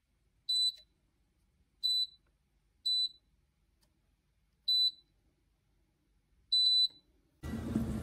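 Rauwseul travel electric kettle's control panel beeping as its buttons are pressed to set the temperature: five short high beeps at uneven intervals, the last one longer. Near the end a steady low hum starts abruptly.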